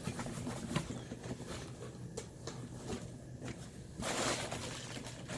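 A cardboard shipping box being opened and its packing handled: scattered light taps and clicks, then about four seconds in a spell of rustling packing material.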